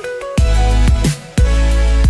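Music with a heavy bass line and a steady beat: deep bass notes about half a second long, each dropping quickly in pitch as it starts.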